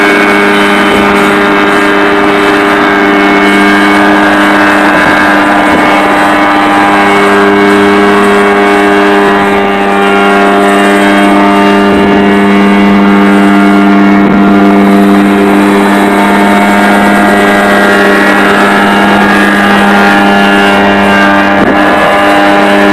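Engine and rotor of a homemade single-seat helicopter running at a steady, unchanging pitch as the machine lifts off and hovers a few feet off the ground.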